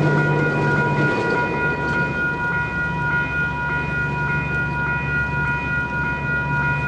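Electronic level crossing bells ringing steadily with a quick repeated ding, the crossing still active. A freight train's wagons rumble past at first, fading about a second in as the train clears the crossing.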